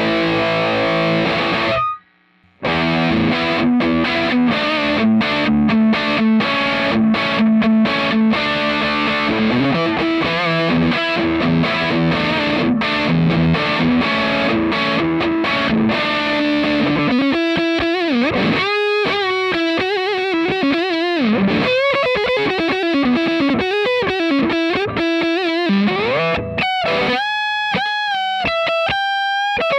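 Electric guitar played through a Cort x Moollon CMV15 valve amp with overdrive: thick distorted chord riffs that stop briefly about two seconds in, then from a little past halfway single-note lead lines with string bends and vibrato.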